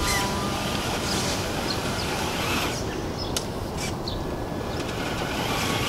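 Birds chirping now and then over a steady low outdoor rumble, with a couple of sharp clicks about three and a half seconds in.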